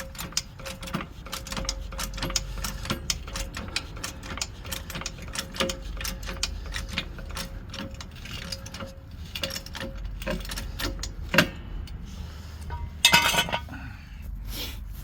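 Car jack being worked to lift the car: a fast, uneven run of metallic clicks and clinks, with a louder clatter near the end.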